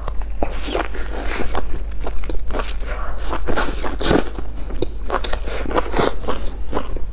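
Biting into and chewing a flatbread sandwich filled with grilled sausages: a dense, irregular run of crunchy crackles, over a steady low hum.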